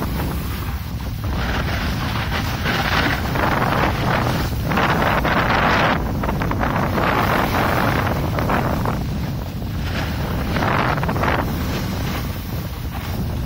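Wind buffeting the microphone during a fast snowboard run, a continuous low rumble. Over it, the snowboard's edges scrape across the groomed, hard-packed snow in hissing swells of a second or two, rising and falling with each turn.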